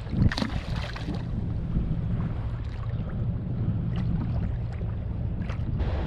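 Wind on the microphone and water moving around a kayak: a steady low rumble with a light wash of noise above it. There is a sharp knock about a third of a second in and a few faint ticks later.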